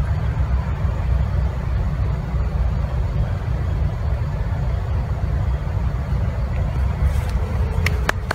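Wind buffeting the phone's microphone: a steady, flickering low rumble, with a few sharp clicks near the end.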